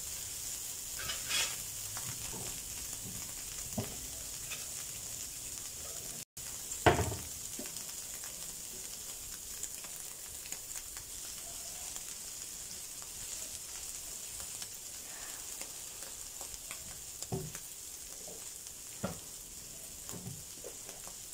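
Chicken pieces, green beans and sweet corn sizzling steadily in oil on a flat tawa, with a few short knocks scattered through; the loudest knock comes about seven seconds in.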